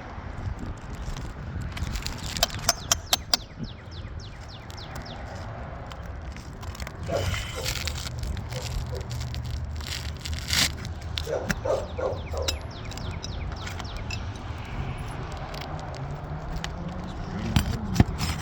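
Sharp taps and clicks on asphalt roof shingles, a quick run of them about two to three seconds in, then scattered knocks and scraping, over a steady low rumble.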